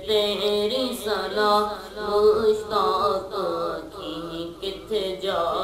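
A young man's solo voice chanting a Punjabi Sufi devotional kalam in long, bending held notes, with no instruments.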